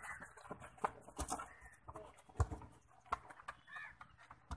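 Faint outdoor sounds of a football game on a dirt pitch: scattered dull knocks of the ball being kicked and of players moving, with a faint distant call or two.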